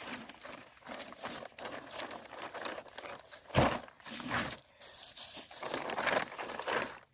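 Rosin paper and tape being handled, crinkling and rustling irregularly, with one louder knock about halfway through.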